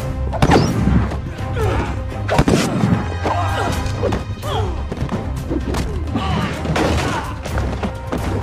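Action-scene soundtrack: a steady, driving music score under a rapid series of hard hits and thuds from punches, kicks and strikes in a fistfight.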